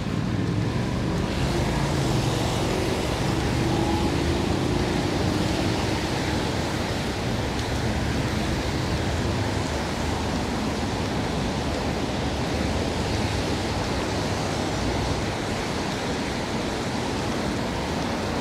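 Steady rushing noise of a city street in the rain, with rainfall and traffic on wet roads blending into one even hiss. A faint hum sits under it in the first few seconds.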